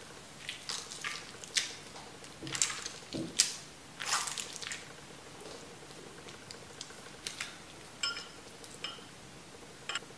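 Wet homemade slime squeezed and kneaded in the hands, making irregular squishing and popping clicks. The clicks are thickest in the first half and sparser later on.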